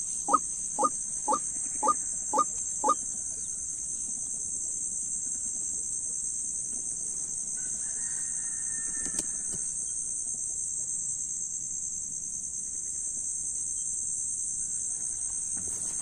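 White-breasted waterhen calls: a run of loud, evenly spaced notes, about two a second, that stops about three seconds in. A steady high-pitched insect buzz runs underneath throughout.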